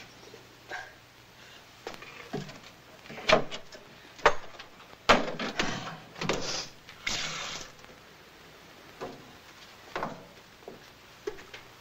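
Scattered knocks and clinks as things, among them a glass, are handled at a wooden cupboard shelf, with a couple of short hissing rushes in the middle.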